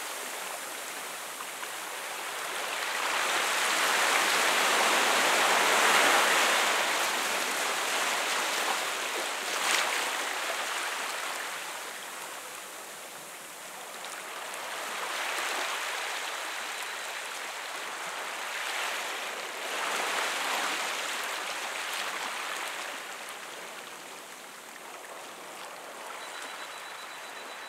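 Small sea waves washing in over rocks and sand and draining back out. The sound swells and fades several times, with the biggest wash a few seconds in.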